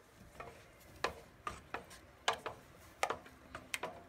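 Wooden spoon stirring sauce in a metal pot, knocking against the pot in a string of light, irregular clicks, roughly two or three a second.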